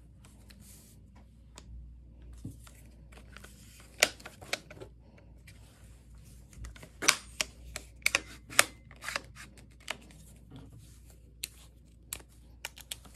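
Handling noise from an air rifle and its foam-lined cardboard box: irregular sharp clicks and knocks with patches of rustling between them. The loudest knocks come about four and seven seconds in, with a quick cluster soon after.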